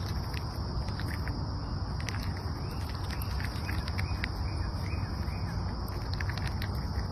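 Outdoor woodland sounds: a steady high insect drone with scattered sharp clicks and a few faint bird chirps, over a low rumble.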